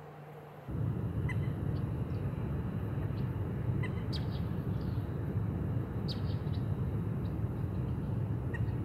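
Short, high bird chirps every second or two over a steady low rumble that starts abruptly under a second in.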